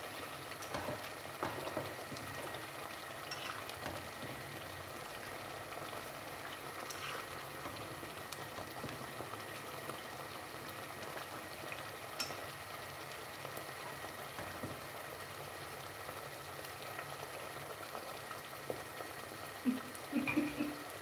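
Thick tomato sauce simmering in a pot on the stove, bubbling steadily with small, faint pops.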